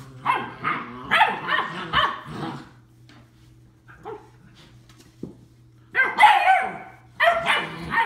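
Labrador retriever puppies barking and yipping while they wrestle in play. Several quick barks in the first few seconds, a lull, then loud barking again from about six seconds in.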